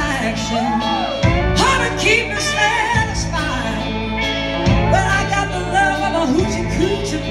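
A live blues-rock band playing a song, with singing over electric guitars, keyboards and drums.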